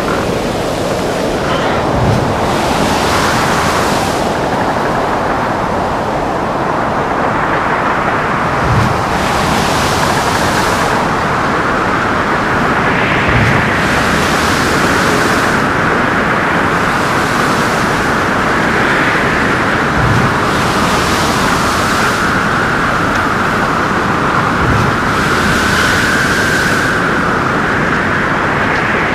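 A ship in a storm: a steady rush of wind and heavy seas, with a whistling wind tone that wavers up and down and hissing surges of spray every couple of seconds. A dull low thump comes every five to seven seconds.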